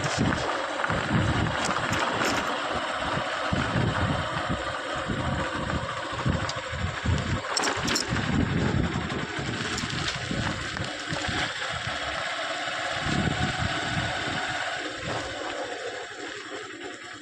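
Diesel engine of a JCB 3DX backhoe loader running while it works, with an uneven low pulsing and two sharp knocks about eight seconds in. The sound fades down over the last few seconds.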